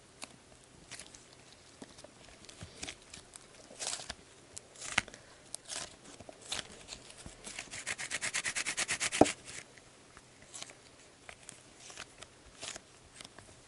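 Fuchsia Sbabam Softy Melmito slime being kneaded and stretched by hand: scattered soft clicks and small pops, with a quick run of crackling pops about eight seconds in that ends in a sharper click.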